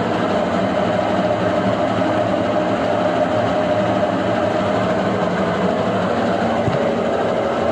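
Brastemp BWK11 washing machine running: a steady, loud mechanical drone with a hum that wavers slightly in pitch.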